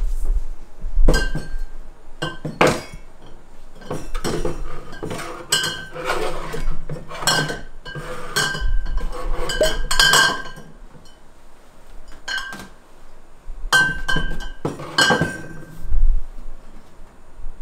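Glassware and metal bar tools clinking and knocking as they are handled and set down: a string of sharp clinks, some ringing briefly, with a quieter stretch about two-thirds of the way through.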